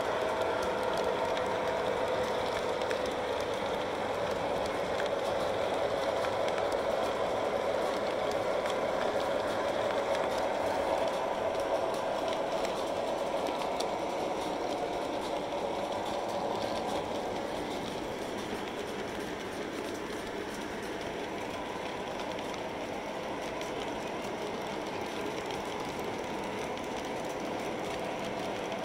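Model train passenger cars rolling past on three-rail O gauge track: a steady running noise of metal wheels on the rails with a faint clickety-clack, dropping a little in level a little past halfway.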